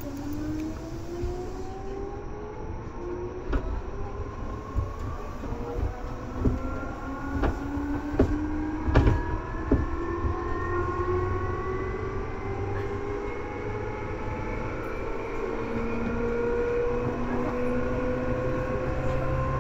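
Seibu 2000 series electric train heard from on board, accelerating. Its traction motor and gear whine climbs steadily in pitch, and a few sharp clacks from the wheels over rail joints come in the first half.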